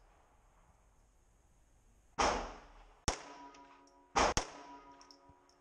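Ruger Mark III 22/45 Target pistol firing .22 LR rounds in a concrete shooting bay: two shots about two seconds apart, each with a short echoing tail. Two sharper, shorter cracks come between them and just after the second shot.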